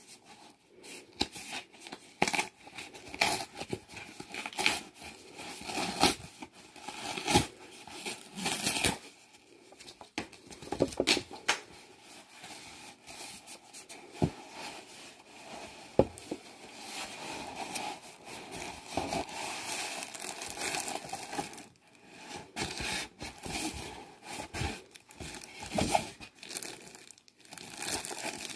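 Cardboard shipping box being torn open by hand: repeated ripping of cardboard and crinkling of packaging in irregular bursts, with a few sharp knocks.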